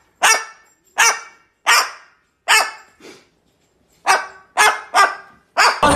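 Cockatoo barking like a dog: about eight short, sharp barks in two runs, with a pause a little past the middle.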